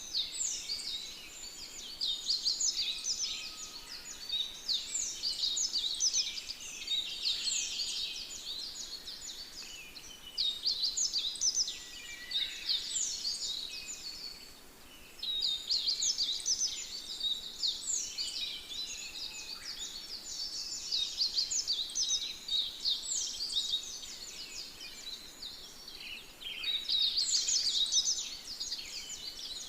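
Dense, overlapping high-pitched chirping calls from animals, quick down-sweeping chirps coming in swelling bursts every two to three seconds.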